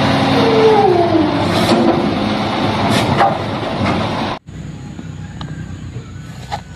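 Heavy truck engine running, with a whine that falls in pitch over the first couple of seconds. It cuts off suddenly a little over four seconds in, like an edited-in truck sound effect, leaving only a few light clicks.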